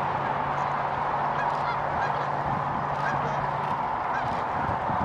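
A large flock of sandhill cranes calling all at once: a dense, steady chorus of many overlapping calls.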